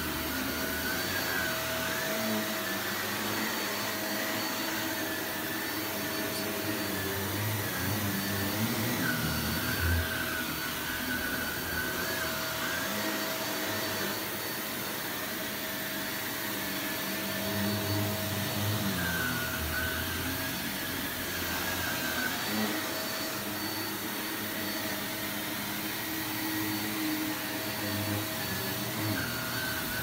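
Bagless upright vacuum cleaner running steadily as it is pushed back and forth over an area rug, with a higher whine that comes and goes every few seconds.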